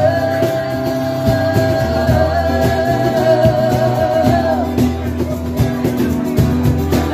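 Live acoustic band: two acoustic guitars strumming steady chords while a woman's voice holds one long high note for about four and a half seconds, wavering slightly before it ends, then the strumming and singing go on.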